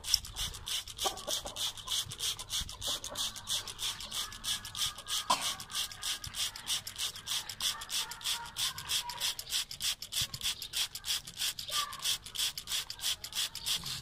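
Hand trigger spray bottle pumped rapidly, misting water over a parrot: a regular run of short hissing squirts, about four a second.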